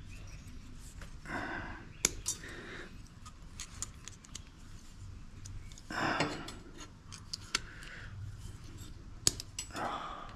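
Side cutters snipping and prying small components off an extruded aluminium heatsink strip: a few sharp metallic clicks a second or two apart, with short scraping sounds between them.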